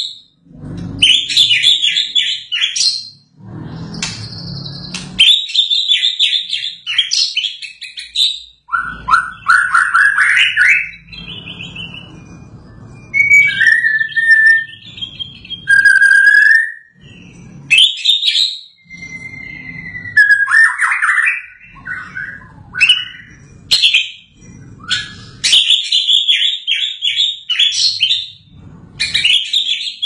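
White-rumped shama singing: phrases of fast, varied trills and whistles, some rising, a second or two long, with short pauses between them.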